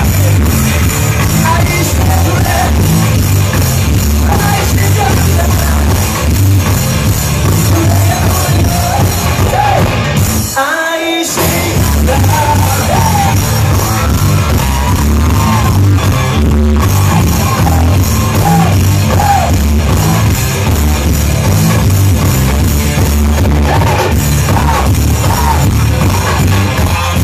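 Loud live rock music heard from within the crowd: a band with a strong bass line and a male lead voice singing over electric guitar. About ten seconds in the low end cuts out for about a second, then the full band comes back in.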